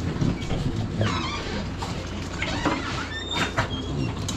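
Metal dog crates rattling and clinking as dogs are let out, with sharp clicks and a few brief metallic rings, over a steady low hum.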